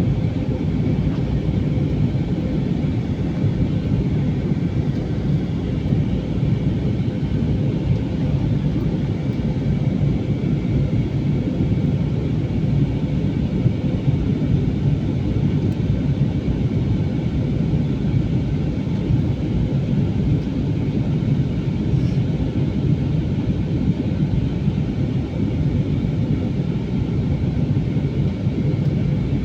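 Aircraft engines running with a steady low rumble and a faint steady whine.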